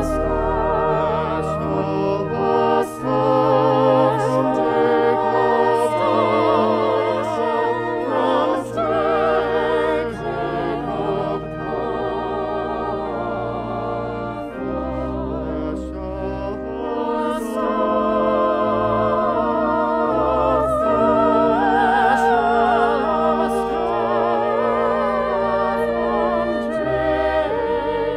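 Music: voices singing a slow piece with vibrato over held low notes of an instrumental accompaniment.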